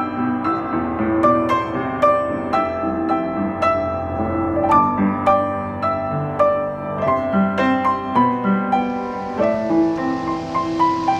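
Background piano music, a gentle melody of evenly struck notes at about two a second. A steady hiss joins about nine seconds in.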